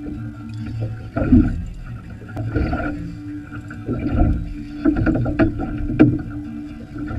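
Wind and water noise around a small open fishing boat, with a steady low hum under it and irregular knocks and clicks. The loudest knocks come about a second in, around four seconds in and at six seconds.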